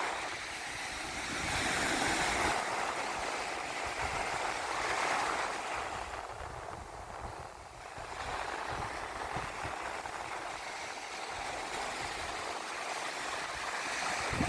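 Gulf surf washing onto the beach, swelling and easing every few seconds, with wind rumbling on the microphone.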